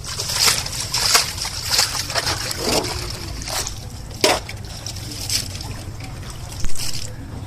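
Water splashing in irregular bursts, a dozen or so strokes with the loudest about four seconds in and near the end: a hooked fish thrashing at the surface.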